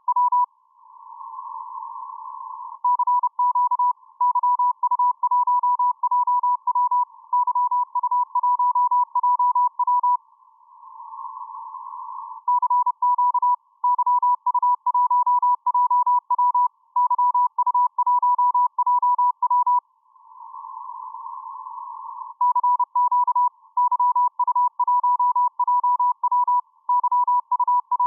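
Morse code (CW) received on the 10-metre amateur band: a single tone near 1 kHz keyed in dots and dashes. Three times the keying pauses and a couple of seconds of band hiss through the narrow receive filter fill the gap.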